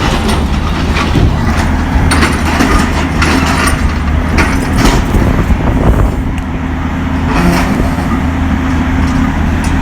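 Cat 329D excavator's diesel engine running under load while its attachment cuts and tears scrap metal. There are irregular metal clanks and crunches over the steady engine note.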